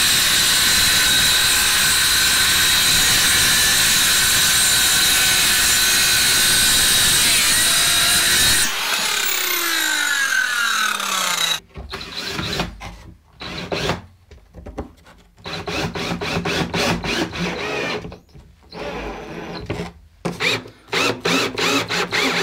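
A power tool runs steadily at full speed for about nine seconds, then is switched off and winds down with a falling whine. After that come quick back-and-forth rubbing strokes on wood, in short runs with pauses between them.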